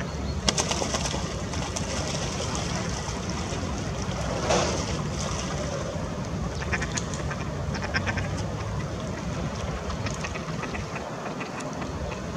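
Ducks calling, with one louder call about four and a half seconds in, over a steady low rumble and scattered short clicks.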